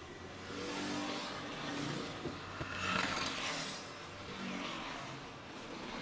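Car driving along a road, with engine and road noise heard from inside the cabin, swelling and fading a few times.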